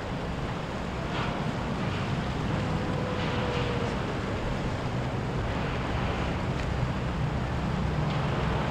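Low drone of boat engines passing through the inlet, growing a little louder, with surf washing and wind buffeting the microphone.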